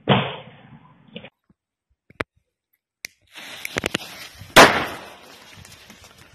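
A loud bang right at the start. A few seconds later, firecrackers go off: a handful of sharp cracks, then one loud blast about four and a half seconds in, its echo fading away.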